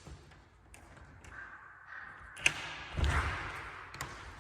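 A door latch clicks sharply, then the door thumps as it is pushed open, with a brief rush of noise.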